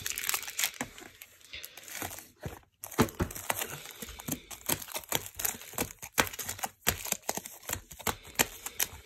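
Foil wrappers of Match Attax booster packs crinkling and crackling in many quick, irregular bursts as the packs are handled. The sound drops out briefly about two and a half seconds in, then carries on.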